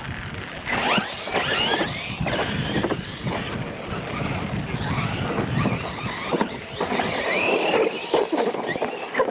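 Two Losi LMT radio-controlled monster trucks racing, their brushless electric motors whining and rising and falling in pitch as they accelerate, jump and land. The whine sets in about a second in.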